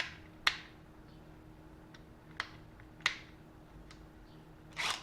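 Sharp plastic clicks and snaps from handling a Hart 20-volt cordless impact driver and its battery, four of them spread across the seconds, over a faint steady hum.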